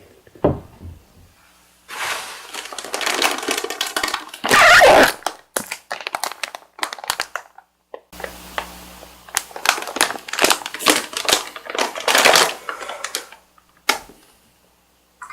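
Close-miked eating sounds: runs of crackly chewing and mouth smacks, in two stretches with a short pause between them.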